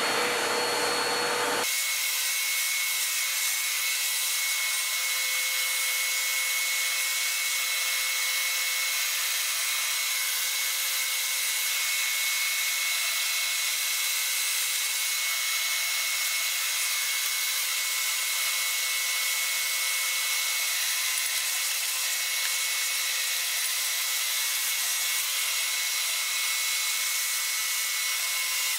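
Vacuum cleaner running steadily, its hose and brush nozzle drawing dust off a vintage television chassis. It is an even hiss with a thin high whistle, and its low rumble drops away about two seconds in.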